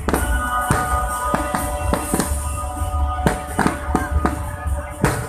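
Fireworks bursting in quick, irregular succession, about a dozen bangs, over loud music from the display's soundtrack.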